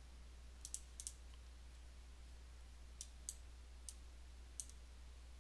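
Light clicks of a computer mouse, about eight, some in quick pairs and some single, spread irregularly over a faint steady low hum.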